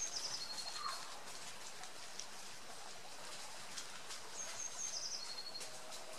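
A songbird singing the same short phrase twice, about four seconds apart: a high note, a quick trill, then a lower steady note.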